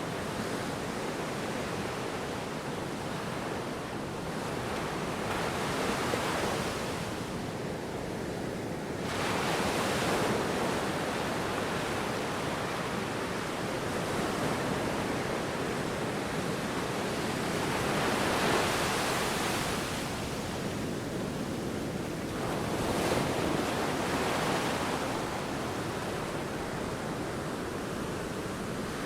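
Sea waves breaking and washing in, a steady roar of surf that swells louder about every five to ten seconds, with some wind.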